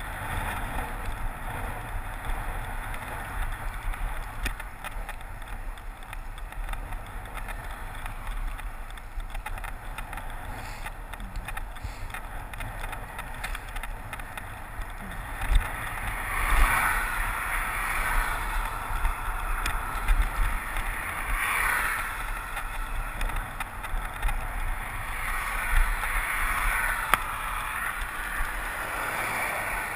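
Bicycle riding along a road: wind rushing over the handlebar camera's microphone, with tyre and road noise. In the second half it grows louder, with three swells as vehicles go past.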